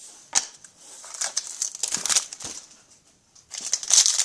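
Plastic wrapper of a hockey card pack crinkling and being crushed in the hands. A sharp click comes about half a second in, then crackly bursts, and a louder stretch of crinkling near the end.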